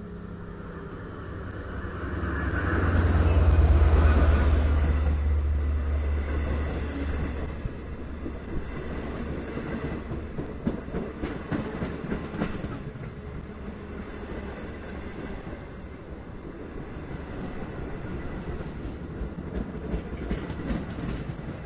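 An EMD DM30AC dual-mode diesel locomotive passes close by with its engine running, loudest a few seconds in. Then double-deck Kawasaki C3 passenger coaches roll past, wheels clicking over the rail joints, as the train slows into the station.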